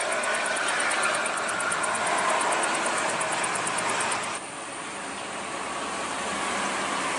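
Buses and cars passing on a toll road at speed: a steady rush of tyre and engine noise. It drops suddenly and changes about four seconds in.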